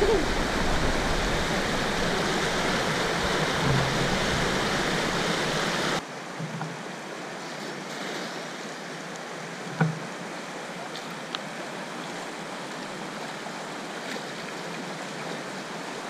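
Rushing water of a shallow, rocky mountain river running over stones: a steady wash, loud for about six seconds, then suddenly quieter and thinner. A short thump comes near ten seconds in.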